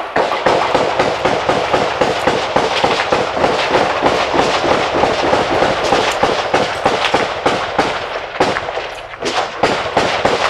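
Heavy automatic gunfire, many rapid shots overlapping in a dense crackle that eases and thins out over the last couple of seconds.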